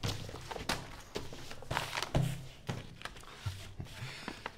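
A run of irregular knocks and thunks with paper handling, as of documents and drawers being rummaged through in a hurried search.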